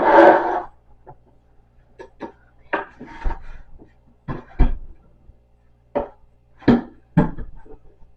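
Wooden panels of a printer stand knocking and clacking as they are worked loose from their glue: a clattery burst at the start, then a dozen separate sharp knocks at irregular intervals.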